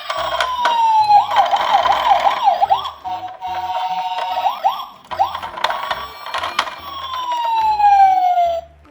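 Toy police car and ambulance sirens going in turn: a slow falling wail, a quick warbling yelp, a steady two-tone hi-lo, then another long falling wail near the end that cuts off.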